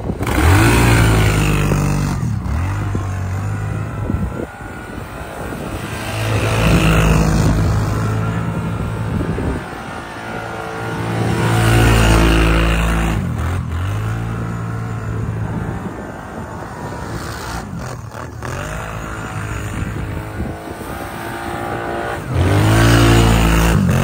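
Kawasaki Brute Force ATV engine revving hard in repeated surges, about four times, as its wheels spin and churn through deep snow, with lower running between the bursts.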